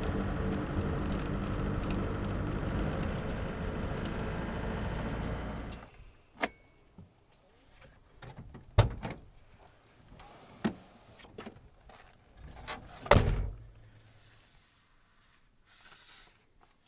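Ford Transit van's engine running, cutting off suddenly about six seconds in. A handful of separate knocks and clunks follow, the loudest near the end.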